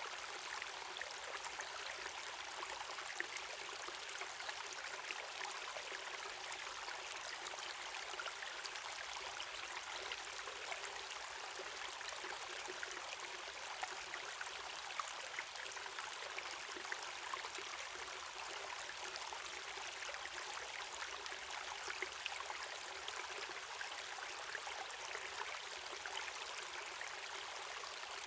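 Water of a waterfall and stream running steadily, a continuous rushing with many small splashes and little deep rumble.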